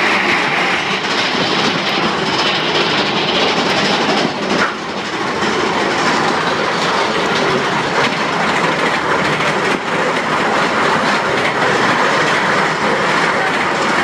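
Mine-train roller coaster (Big Thunder Mountain Railroad) running along its track, heard from a seat on board: a steady rumble and clatter of wheels on rails, with a brief knock about four and a half seconds in.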